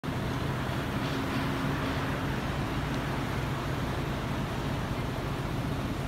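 Diesel engine of a city bus idling steadily while it stands at a stop, an even low hum.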